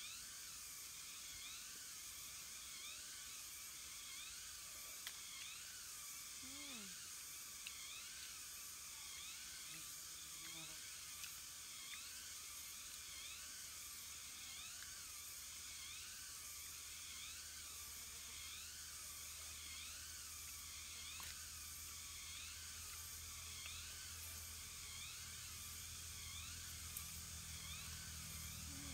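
Steady high-pitched drone of forest insects, with a short chirping call repeating over and over at about one a second. A few faint clicks are scattered through it.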